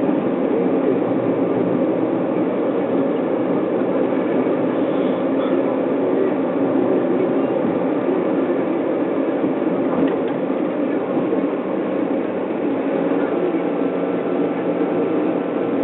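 Steady road and engine noise heard inside the cabin of a car cruising at an even speed.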